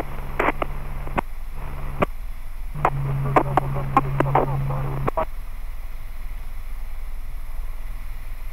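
Aviation radio chatter heard over a helicopter headset: two short, thin, muffled transmissions with a hum under the voice, each ending in a squelch click, the second running to about five seconds in. After that only the steady low drone of the helicopter's intercom remains.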